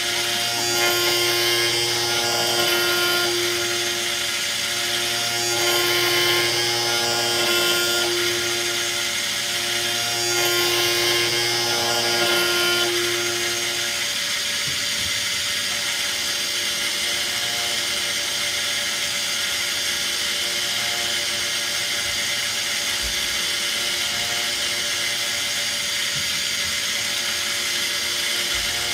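Tsugami M08SY CNC lathe machining a brass part with a live turret tool: a steady pitched spindle whine over a constant machine hum. The whine comes and goes in three cutting passes of about three seconds each, then the machine runs on at a steadier hum.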